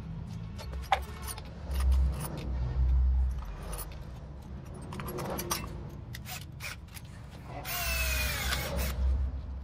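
Scattered handling clicks and knocks, then a small electric motor runs for about a second near the end and winds down with a falling pitch.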